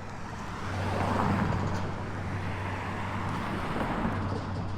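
Road traffic: a vehicle passing, swelling about a second in and easing off, over a steady low hum.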